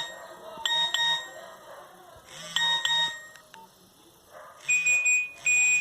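Nokia 1110 mobile phone playing a monophonic ringtone through its small speaker: short pairs of beeps on one pitch, then after a pause a quicker run of higher-pitched beeps near the end.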